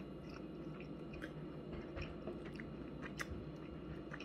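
A person chewing a mouthful of home-cooked chicken, with soft, irregular clicks of the mouth.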